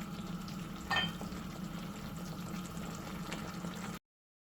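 Minced chicken in tomato sauce sizzling and bubbling steadily in a frying pan, with one short sharp clink about a second in. The sound stops abruptly near the end.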